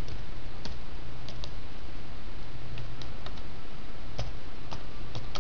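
Irregular clicking from a computer being operated by hand, about a dozen short clicks spread unevenly over steady background noise.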